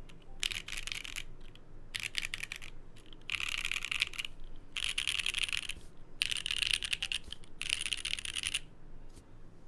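Typing on a Geonworks F1-8x mechanical keyboard with lubed Gateron Silver Snow switches and PBT keycaps on an aluminium plate: six quick runs of key presses about a second each, separated by short pauses, then a single keystroke near the end.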